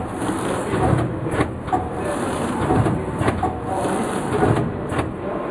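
BBM FP500HSE automatic film bundling machine running: a steady mechanical clatter with irregular sharp clacks and knocks as it wraps film around empty cardboard boxes.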